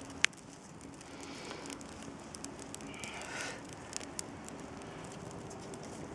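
Campfire of branches burning and crackling, with frequent small pops and one sharp, loud pop just after the start.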